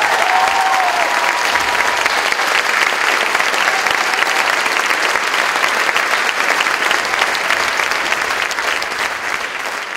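Audience applauding: a steady round of dense clapping that begins to ease off near the end.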